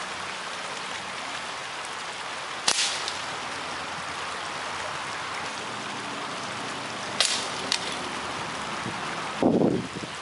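Sharp cracks of BB gun shots fired at cathode ray tubes, one about a quarter of the way in and two close together about three-quarters in, over the steady rush of a river. A louder, lower burst of sound comes near the end.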